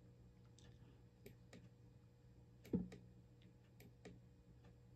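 Faint clicks of the push buttons on a Honeywell UDC 2800 temperature controller's front panel being pressed, with one louder click about halfway through, over a faint steady low hum.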